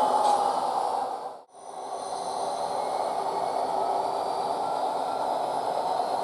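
Diesel locomotive engine sound from a SoundTraxx Tsunami DCC decoder, played through four small sugar-cube speakers in an HO-scale Athearn model diesel. The engine runs steadily, cuts out briefly about a second and a half in, then comes back a little quieter.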